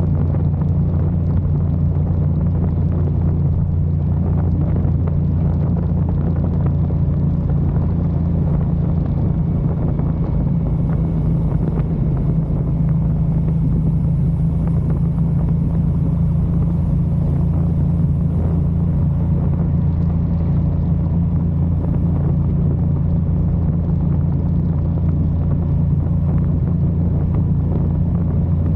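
Motorcycle cruising at a steady speed on a highway: a constant, unchanging engine drone with wind and road rumble on the bike-mounted microphone.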